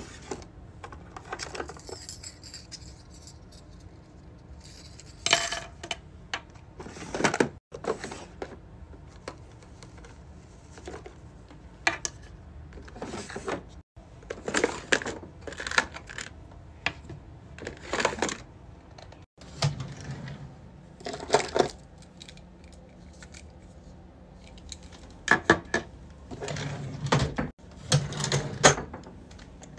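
Keychain pieces with metal split rings clinking and jangling as they are handled and set down on a table, mixed with plastic organizer drawers being pulled open and clacking. A string of short clicks and clatters, with a few abrupt cuts.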